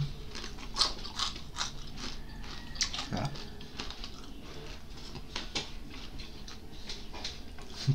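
Close-up chewing of crunchy fried dried fish, bones and all: an irregular string of sharp crunches and mouth clicks, a few a second.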